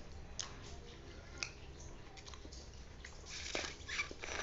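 Close-up eating of boiled instant noodle soup: wet chewing and mouth sounds, with a few short clicks and a louder, denser stretch near the end.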